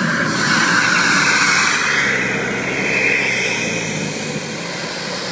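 KingTech K45 model jet turbine running in a JTM 90Viper as the jet taxis away, a loud steady turbine hiss and whine that eases off slowly toward the end.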